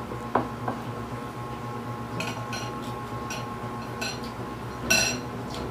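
Clinks of a glass bowl and a metal spoon as a hand reaches into the bowl, with small clicks and a louder ringing clink about five seconds in, over a steady low hum.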